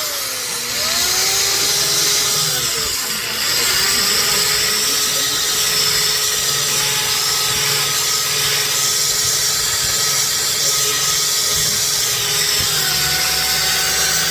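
Electric power tool running continuously during a knife restoration, a steady motor whine over a loud hiss. Its pitch wavers during the first few seconds, then holds steady.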